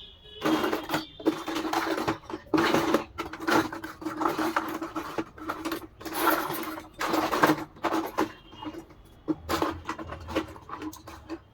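Hands unpacking and handling a toy dollhouse and its parts: irregular bursts of rustling and scraping with a few sharp clicks, in quick succession.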